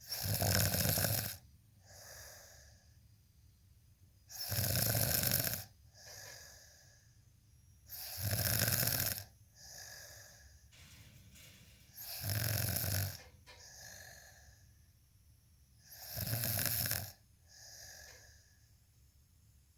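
Steady snoring: five loud snores about every four seconds, each followed by a softer breath.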